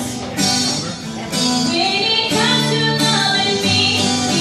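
A woman singing into a microphone, holding long notes, with a strummed acoustic guitar accompanying her.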